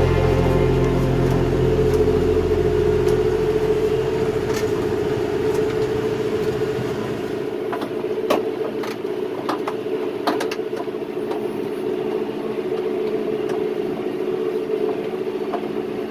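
John Deere 5100E tractor's diesel engine running steadily, as music fades out over the first few seconds. A handful of sharp clicks or knocks come about halfway through.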